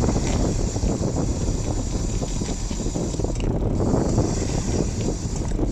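Wind buffeting the microphone of a bicycle coasting downhill on a wet road, over a steady high hiss.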